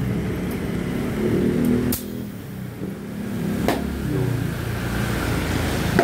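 A motor vehicle's engine running nearby as a steady low rumble, with two sharp clicks, one about two seconds in and one near the middle.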